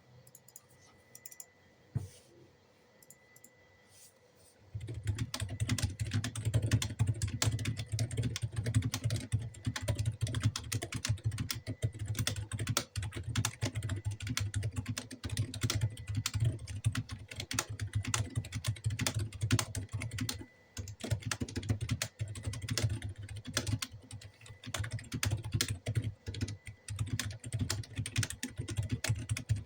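Typing on a Leaven K620 mechanical keyboard fitted with Outemu Silent Lemon silent switches: after a near-quiet start with a single click about two seconds in, fast continuous keystrokes begin about five seconds in and keep on without a break.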